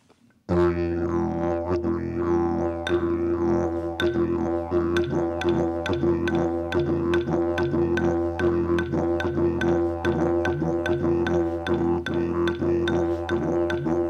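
Didgeridoo drone with a steady beat of sharp taps, starting about half a second in after a brief pause.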